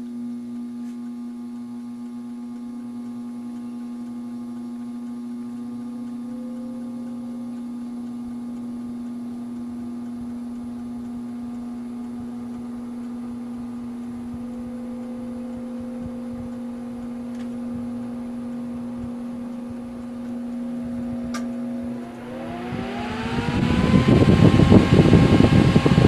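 All-metal fan of a NOEVSBIG solder fume extractor running on its lowest speed: a steady motor hum whose tones creep slowly upward as it takes its time getting up to speed. About 22 seconds in, the pitch sweeps up sharply and a loud rush of air takes over as the fan runs up to a much higher speed.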